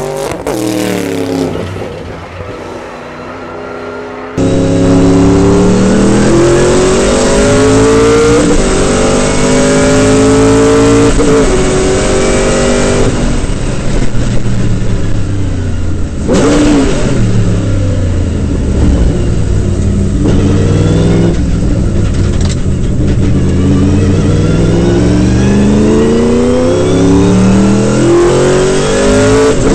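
Sauber Mercedes C9's twin-turbo V8 race engine at full throttle, its pitch climbing and dropping back again and again as it shifts through the gears, with a gear whine rising alongside it. It briefly winds down about midway before accelerating hard again.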